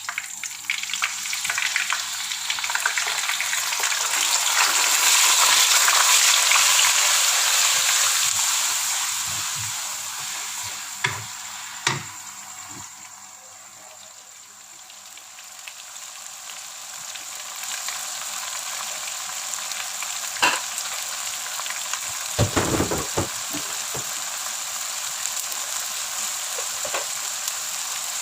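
Shallots and garlic sizzling in hot oil with lemongrass as they are stirred in the pan. The sizzle swells over the first several seconds, eases about halfway, then settles to a steady level, with a few sharp knocks of the utensil against the pan.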